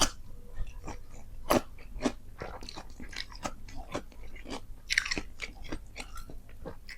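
Close-up chewing and crunching of a mouthful of nasi padang: irregular crisp crunches and wet mouth clicks several times a second, with one longer crunch about five seconds in.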